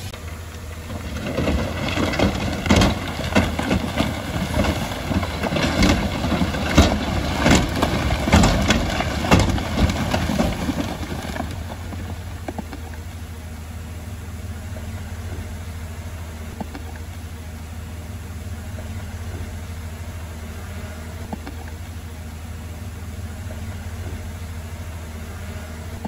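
Bulldozer diesel engine running steadily. For roughly the first ten seconds, loud irregular clattering and crunching of rock and steel sits over it, then the engine runs on alone.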